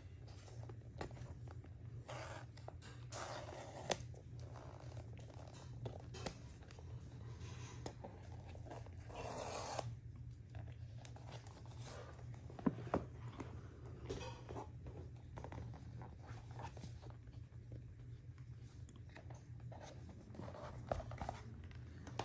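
Cardboard and paper packaging of an Apple Watch box being handled and opened by hand: scattered rubbing, scraping and tearing, with light taps and clicks and a longer noisy scrape about nine seconds in. A steady low hum runs underneath.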